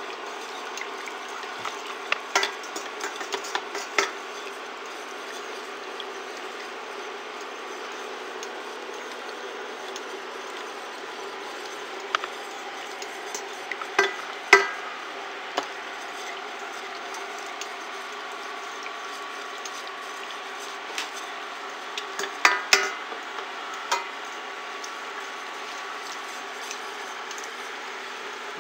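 A silicone spatula stirring and scraping borax solution in a stainless steel saucepan, with scattered clicks and knocks against the pan, over a steady hum. The borax is being dissolved in near-boiling water.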